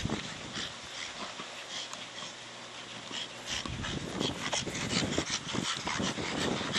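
Staffordshire bull terrier panting in quick, noisy breaths, getting busier and louder about halfway through.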